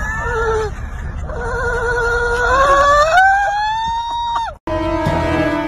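A dog whining and howling in excited greeting with high, wavering cries. The last cry is long, rises in pitch, and cuts off about four and a half seconds in, followed by music.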